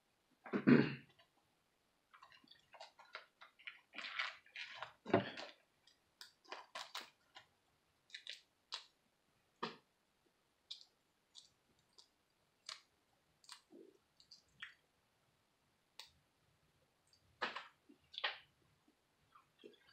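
Boiled crawfish being peeled by hand, the shells cracking in scattered short clicks, with wet chewing and smacking between.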